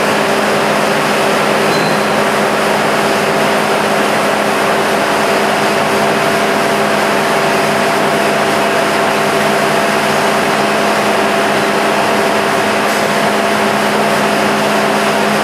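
Automatic glass bottle washing machine running: a constant machine hum over a steady wash of mechanical noise.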